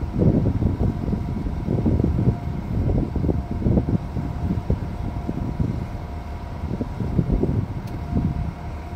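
Wind buffeting the phone's microphone in irregular gusts, with a faint steady hum underneath.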